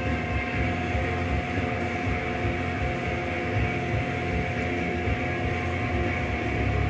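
Steady mechanical hum with a constant whine and a low, uneven rumble beneath it.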